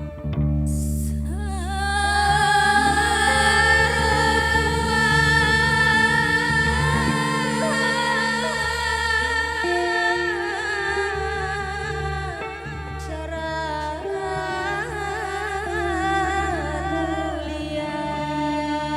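Traditional Acehnese ensemble music: voices singing a slow, long-held melody over a steady low drone.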